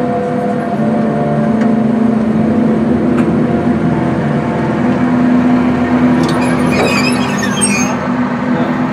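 Ride train running steadily with a constant low hum and rumble, and a brief burst of higher, crackly noise from about six to eight seconds in.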